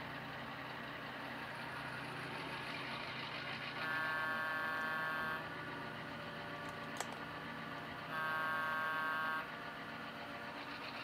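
Sound-equipped HO scale model diesel locomotive sounding two long horn blasts, about four seconds apart, over a steady low engine hum from its small onboard speaker.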